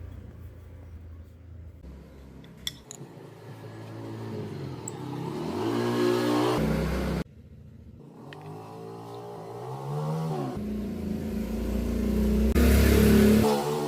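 Electric power tool motor speeding up and slowing down in several runs, its pitch gliding up and down, with a few abrupt cuts.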